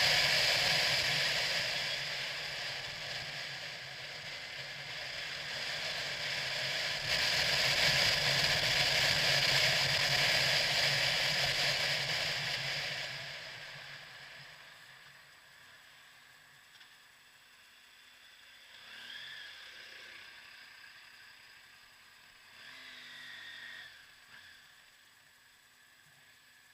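Motorcycle on the move, heard from a helmet-mounted camera: wind rush over the engine's running. It is loud for about the first half, then fades as the bike slows in traffic. Two brief high tones come in the quieter second half.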